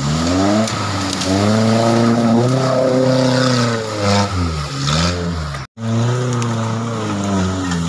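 Engine of an engine-swapped Suzuki Jimny off-roader revving hard under load while climbing out of a rocky riverbed, its pitch rising and falling several times. The sound drops out for a moment just before six seconds in.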